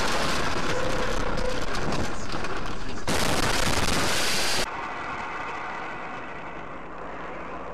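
Loud, distorted crackling and clattering of a vehicle crash heard through a dashcam, at its harshest and most hissing from about three seconds in and cutting off suddenly about a second and a half later. A quieter, steady noise of a car driving follows.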